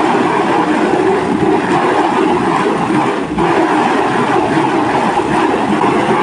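Water from a garden hose spraying hard onto a silk screen's emulsion-coated mesh, a steady hiss and spatter that eases for a moment about three seconds in. The water is washing the unexposed emulsion out of the mesh to develop the printing stencil.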